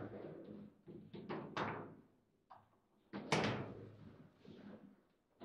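Table football play: sharp knocks of the ball against the plastic figures and of the rods at the table's edges, a few in quick succession in the first two seconds and the loudest about three seconds in.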